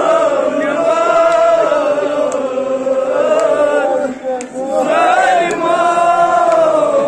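Men's voices chanting a Kashmiri noha, a Shia mourning elegy for Muharram, in long drawn-out lines, with a short break about four seconds in.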